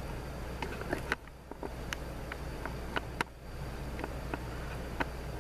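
Scattered sharp metal clicks and taps of hand tools working a snap ring inside a 41TE automatic transmission case, over a steady shop hum; the loudest clicks come about one and three seconds in.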